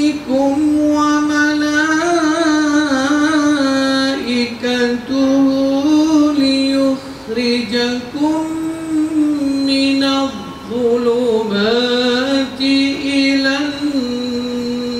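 A man's voice reciting the Quran in the melodic chanted style (tajweed): long held notes with ornamented wavering turns, and short pauses for breath between phrases.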